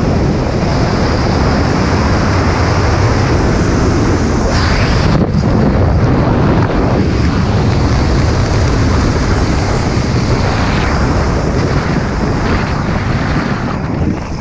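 Loud, steady wind noise rushing over the camera microphone, caused by the airflow of a skydiver descending under a parachute canopy.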